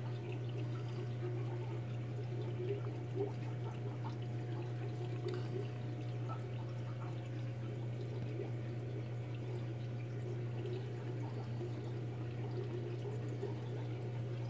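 Aquarium filtration running: a steady pouring, trickling water sound over a constant low hum.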